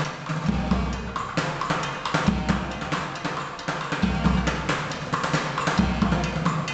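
A street band playing a busy, fast beat on plastic buckets used as drums and a bass drum with a cymbal, with deep thumps recurring every second or two. Two saxophones play faintly over the percussion.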